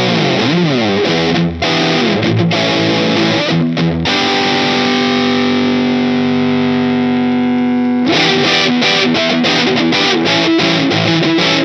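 Electric guitar played through a Boss DS-2 Turbo Distortion pedal, heavily distorted. Sliding lead notes give way to a single note held for about four seconds, then quick picked phrases.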